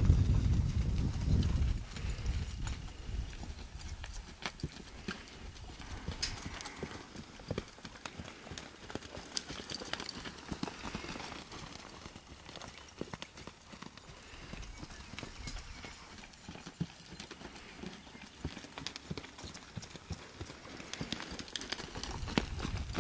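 Hoofbeats of a quarter horse gelding moving under saddle on deep sand footing: irregular soft knocks. A low rumble covers the first two seconds.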